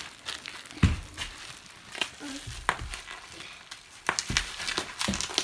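Bubble wrap popping under children's hands and bare feet: sharp, irregular snaps, a few at a time at first, then coming thick and fast near the end.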